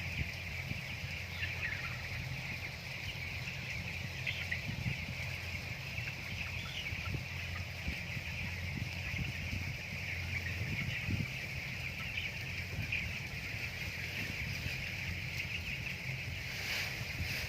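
A flock of broiler chickens calling, a steady chorus of many overlapping cheeps over a low steady hum.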